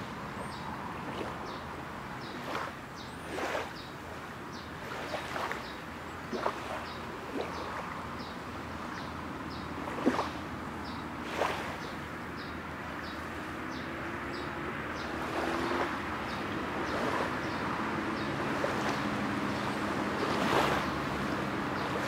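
Small freshwater lake waves lapping on the shore: a steady wash broken by short, irregular splashes every second or two.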